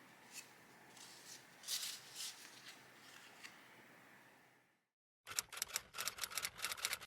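Faint room tone with a few soft taps and rustles, fading out; after a moment of silence, a quick run of sharp, closely spaced clicks and taps.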